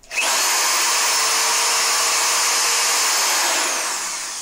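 Handheld power drill with a ship auger bit in its chuck, run at full speed with no load: it spins up sharply, runs steadily for about three seconds, then is released and winds down with a falling whine.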